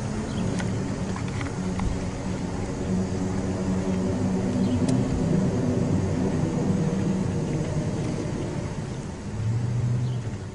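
Low droning rumble made of several steady low tones that waver slightly, swelling briefly near the end: the unexplained rumbling hum that residents complain of.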